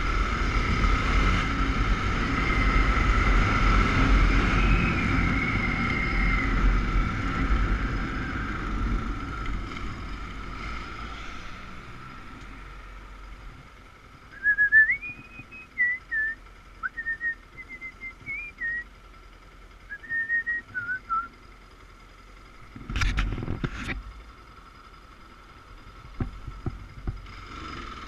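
Motorcycle riding with heavy wind noise on the microphone, growing quieter as it slows to a stop and idles. While it waits, a person whistles a short wavering tune over the idle, and about two-thirds of the way through there are two short bursts of noise.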